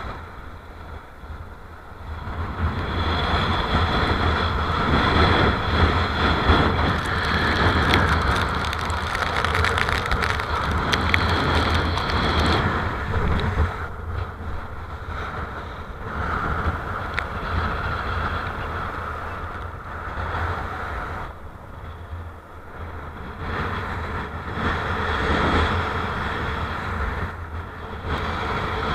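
Strong wind buffeting the microphone with a deep rumble, over the rush of water beneath a kiteboard riding choppy surf. It swells and eases in gusts, dropping briefly near the start and again about two-thirds of the way through.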